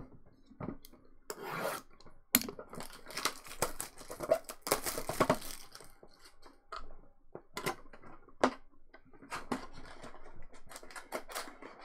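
A sealed cardboard hobby box of trading cards being handled and torn open by hand: a run of clicks, taps and scrapes on cardboard, with a longer tearing sound about five seconds in.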